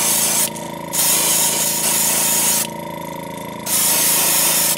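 Airbrush spraying pearl green paint in three spells of hissing air. The spray stops about half a second in, runs again from about one second to nearly three, and comes back for about a second near the end, over a steady hum.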